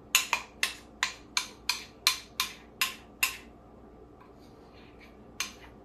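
A spoon knocking against the side of a mixing bowl of frosting: about ten sharp, even taps, roughly three a second, then a pause of about two seconds before the taps start again near the end.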